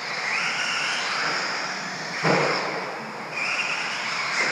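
Radio-controlled stadium truck running on a dirt track, its motor whine rising in pitch twice as it accelerates, over a steady rush of noise. A sharp knock comes a little past two seconds in.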